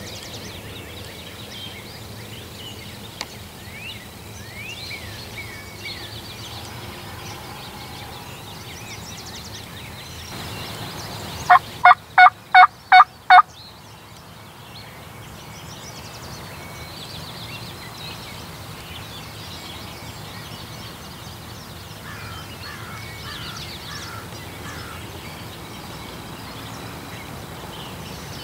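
Wild turkey calling loudly about halfway through: a single burst of about six quick notes lasting some two seconds, over faint songbird chirps.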